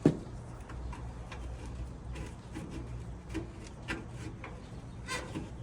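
Handling and screwdriving noises on a clothes dryer's panels: one sharp knock at the start, then light scattered clicks and ticks of the screwdriver and metal parts being fitted.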